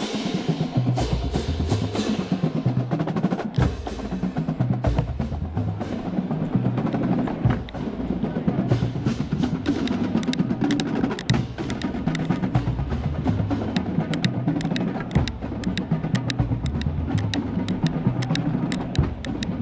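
Marching band drumline playing a loud, continuous cadence: rapid snare drum strokes and rolls over tuned bass drums stepping up and down in pitch.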